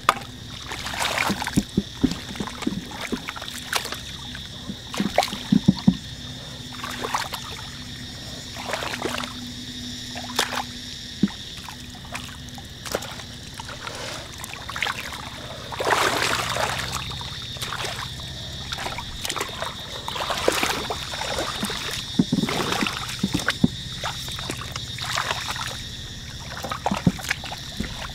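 Hands and legs working in shallow muddy paddy water: irregular splashes, sloshes and wet slaps of mud and water, with longer, heavier splashes of water being thrown aside a little past halfway and again later.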